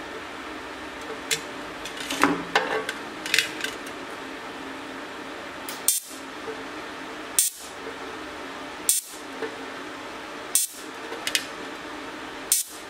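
TIG welder at the torch giving short, sharp crackling bursts about every one and a half seconds over a steady hum, with a few light knocks and rattles in the first few seconds. The arc is struggling to strike on the steel tank patch because paint on the metal stops it arcing up.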